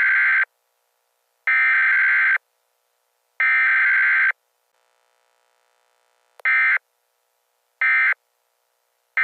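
Emergency Alert System SAME digital data bursts over NOAA Weather Radio, a harsh buzzing warble. Three header bursts about a second long and a second apart, then three short bursts: the end-of-message code.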